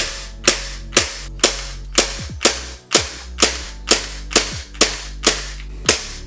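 Tokyo Marui Glock 22 gas blowback airsoft pistol being dry-fired with gas and no BBs. There are about thirteen sharp, evenly spaced blowback shots, about two a second, each one cycling the slide.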